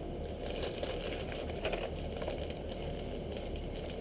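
Plastic bait packaging crinkling and rustling as it is handled, busiest in the first half, over a steady low hum.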